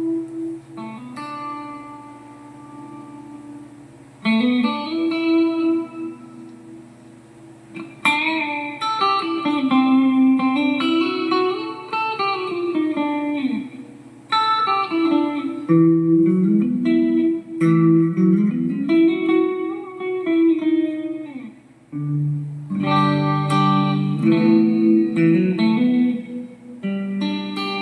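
Guitar played through a Mooer GE150 Pro LI multi-effects processor: ringing chords alternating with single-note lines that climb and fall, with brief pauses between phrases.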